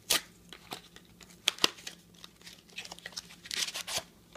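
A small cardboard trading-card pack box being torn open and a stack of cards slid out, with sharp tearing snaps near the start and about a second and a half in, then a longer papery rustle near the end.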